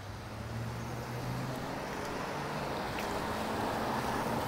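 Road traffic passing: steady tyre noise that grows gradually louder, with a low engine hum underneath.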